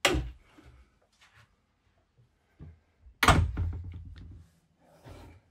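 Wooden cabin door on a sailing yacht being handled: a sharp knock as it swings open, then a heavier, louder thud about three seconds in.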